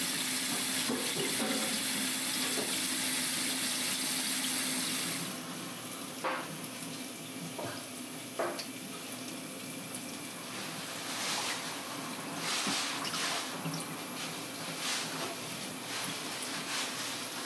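Tap water running steadily onto peeled white radish rounds in a metal pot, cut off abruptly about five seconds in. Then a few light clicks and short wet handling sounds as the pieces are skewered with bamboo skewers at the sink.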